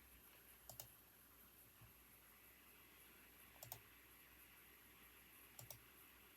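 Faint, sparse clicks of computer keyboard keys: three quick double clicks about two seconds apart, over a quiet room hush.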